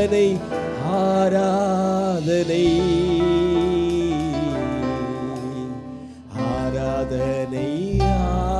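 A man singing a Tamil worship song through a microphone over a live band, holding long wavering notes; the music drops away briefly about six seconds in and then comes back.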